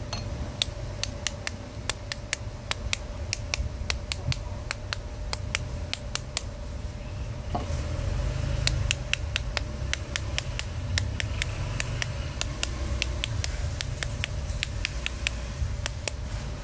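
Irregular sharp clicks and ticks, a few each second, from hands squeezing and turning crisp, scored young green mangoes in a ceramic bowl, over a steady low rumble.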